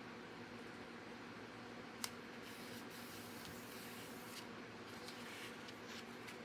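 Faint rustling and scraping of hands pressing and sliding cardstock on a glass craft mat, with one sharp click about two seconds in, over a steady low hum.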